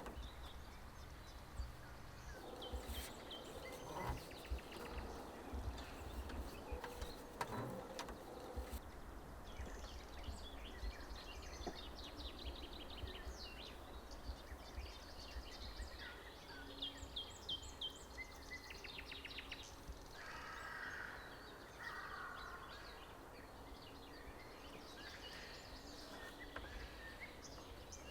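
Forest ambience: small birds chirping in quick runs of high notes, over a steady low rumble, with a few soft knocks in the first several seconds.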